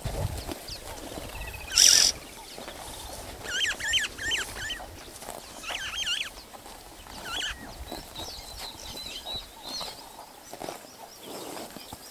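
White rhinos grazing, with soft repeated tugs and crunches as they crop short grass. Glossy starlings call in short warbling whistles, in several bouts. A short, sharp hiss about two seconds in is the loudest sound.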